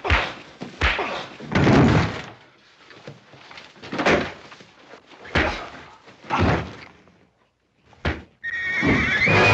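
Fistfight sound effects: punches landing with thuds and bodies crashing into wooden stable walls, about seven blows spaced unevenly. Music comes in near the end.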